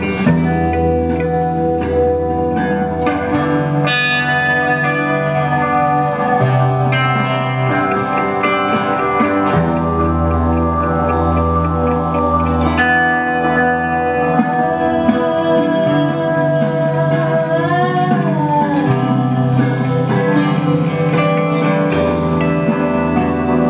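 Live band music led by guitar over sustained bass notes, with no singing. Around three quarters of the way through, a held note bends up and down in pitch.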